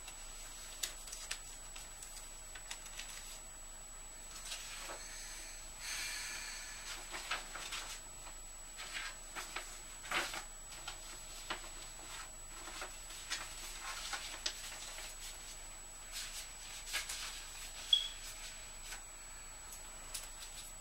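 Sheets of paper and envelopes rustling and crinkling as they are picked up, leafed through and dropped back on a pile, with scattered soft clicks and taps at irregular moments.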